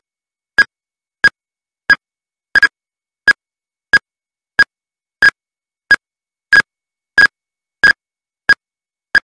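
Countdown-timer sound effect: short, sharp electronic ticks with a bright beep in each, about three every two seconds, a few of them doubled, with silence between.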